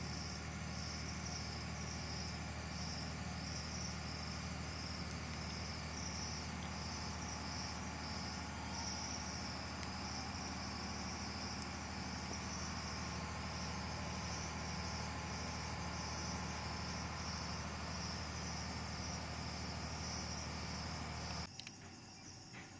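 Night insects, cricket-like, chirping in a steady pulse about once a second over a steady low hum. The hum cuts off suddenly near the end.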